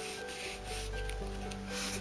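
Hands rubbing and handling a small plastic Kinder Surprise toy shark, in patches of rustling noise, over background music.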